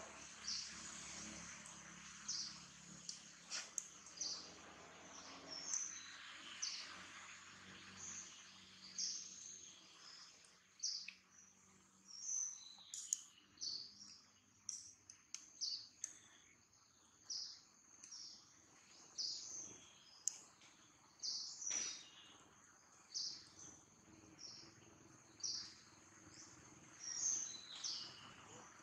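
A bird calling over and over: short, high-pitched chirps, about one a second, over a faint background hiss.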